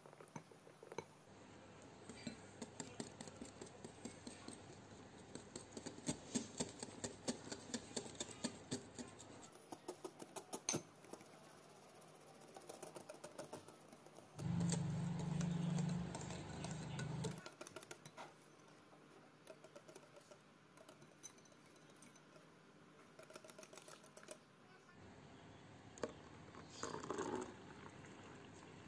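A spoon and then a wire whisk stirring a thick creamy milk mixture in a glass bowl, with rapid clicking and tapping of the metal against the glass. About halfway through there is a louder, low-pitched noise lasting around three seconds.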